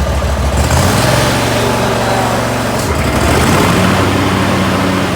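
Repaired lawn mower's engine running, its speed shifting up and down a few times.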